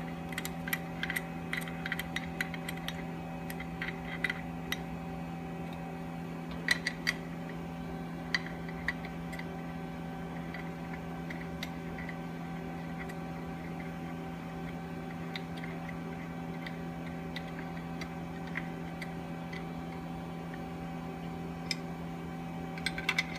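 Light clicking of a tool tightening the cap screw on an aluminum split ring: a quick run of several clicks a second for the first few seconds, then scattered single clicks. A steady low hum runs underneath.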